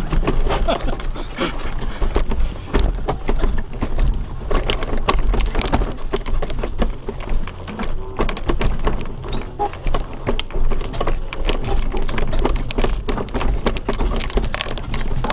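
Electric mobility scooter driving over a flagstone path: a steady low rumble with dense, continuous rattling and clicking.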